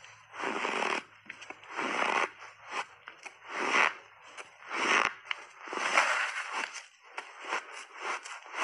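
Shaved ice crunching between the teeth in close-up, a run of loud separate bites about one a second, turning into quicker, lighter crunches near the end as it is chewed down.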